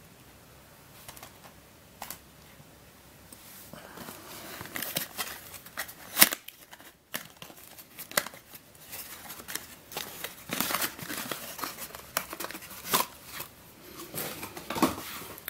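A small cardboard puzzle box being opened and its packaging handled: crinkling and rustling with many sharp clicks and taps. It starts about four seconds in, and the loudest sound is a single snap about six seconds in.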